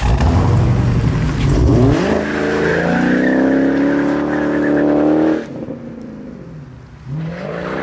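Dodge Challenger SRT Hellcat's supercharged V8 revving and accelerating. A heavy low rumble for about two seconds gives way to a climbing engine note that cuts off suddenly about five and a half seconds in. A second, shorter rising rev comes near the end.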